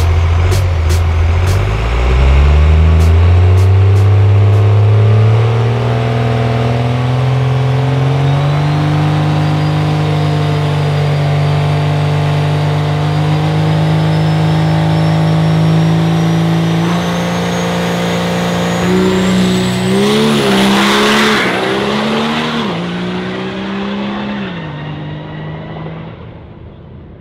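Diesel pickup's engine on nitrous, revved up and held at a steady high pitch on the starting line, then launching down the drag strip. Its pitch climbs and drops several times through the gear changes before fading away down the track.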